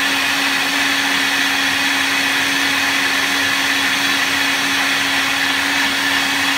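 NutriBullet Rx blender motor running at a steady speed, blending a smoothie of leafy greens, frozen berries, oats and protein powder in its stainless-steel pitcher. It makes one unchanging motor tone over loud, even whirring.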